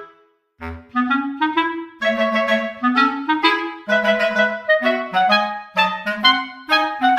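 Background music: a melody of short, quick pitched notes on a reedy wind-like instrument, breaking off for a moment just after the start before picking up again.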